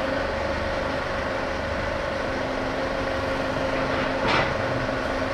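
A motor vehicle's engine running steadily, with a held mid-pitched tone over a low rumble, while the crated milling machine is moved in; a short hiss about four seconds in.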